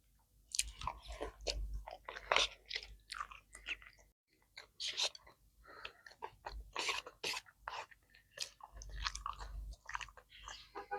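A person chewing and biting food close to the microphone: irregular crunches and mouth clicks, with a short pause about four seconds in.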